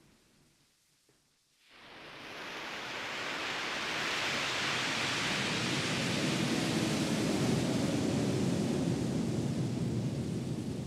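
Ambient electronic music: a steady rushing noise, like heavy rain or surf, swells up over a few seconds out of a brief near-silence about a second and a half in.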